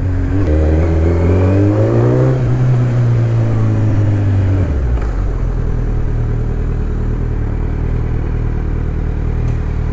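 Kawasaki Z900 inline-four motorcycle with a full Akrapovic exhaust pulling away under throttle, the revs rising with a gear change about two seconds in. About five seconds in the throttle closes and the engine drops to a steady low rumble as the bike slows.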